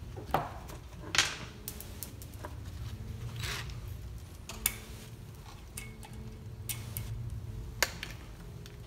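Scattered small metallic clicks and ticks of steel valve keepers being picked out of the valve spring retainers on an LS-engine cylinder head with a magnet, a few of the clicks sharper than the rest.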